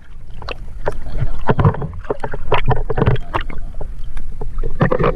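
Water splashing and sloshing around a camera held partly underwater, in a run of irregular surges with sharp knocks and gurgles as it is moved through the water.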